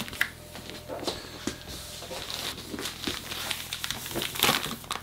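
Plastic grow bags filled with straw pellets crinkling and rustling as they are pressed and shifted against one another in a plastic storage box, in short irregular rustles with the loudest about four and a half seconds in.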